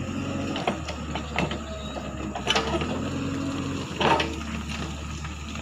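JCB 3DX backhoe loader's diesel engine running steadily at work, with a few sharp clunks and knocks from the machine working, the loudest about two and a half and four seconds in.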